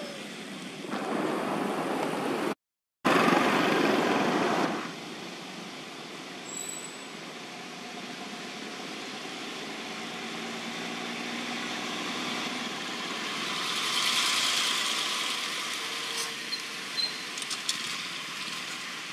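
Steady rushing outdoor background noise, louder for the first few seconds and cut out completely for a moment about two and a half seconds in, with a few faint clicks near the end.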